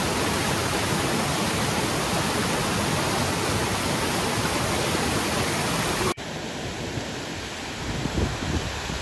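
Mountain stream rushing down a rocky cascade in a steady, loud rush of water. About six seconds in it cuts abruptly to a quieter flow of the same stream.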